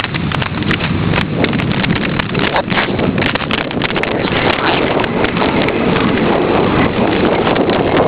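Wind rushing over a hand-held camera's microphone as it is carried along, with scattered knocks and rustling from handling and movement.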